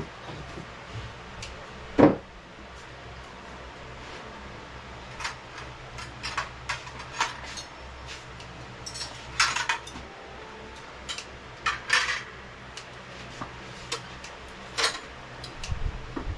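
Plates and cutlery clinking and clattering now and then as a meal is served and eaten, with one louder knock about two seconds in.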